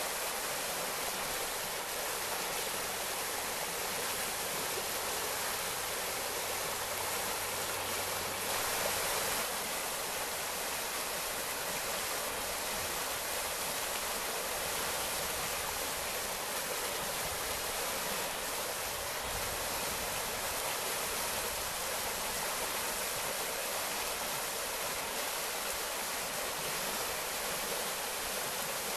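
Forest stream of melted mountain snow, water running and rippling over its bed in a steady, even rush.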